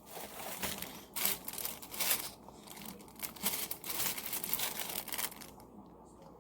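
Packaged jewelry and its wrapping crinkling and rustling as they are handled, in short irregular rustles.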